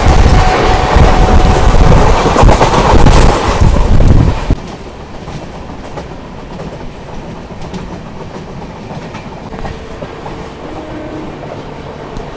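Moving passenger train heard from an open window: a loud rush of wind and rail noise while another train passes close alongside. About four and a half seconds in it cuts suddenly to a much quieter, steady wheel-on-rail running sound.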